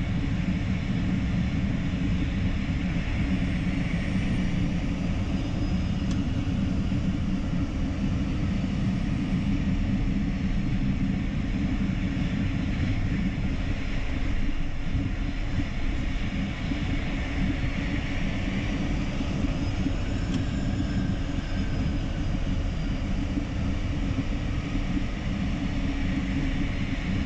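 Embraer Phenom 300E's twin Pratt & Whitney Canada PW535E turbofans at taxi idle, heard from inside the cockpit. A steady rumble runs throughout, with a faint high whine that drifts slightly in pitch.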